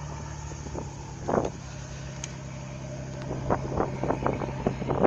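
A motor running steadily with a low drone. Short gusts of wind hit the microphone, one about a second in and more and more often in the last part.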